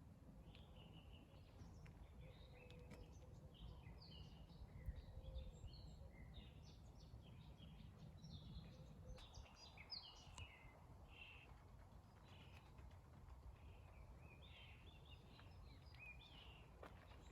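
Several songbirds singing faintly, short chirps and song phrases overlapping throughout, over a low steady rumble.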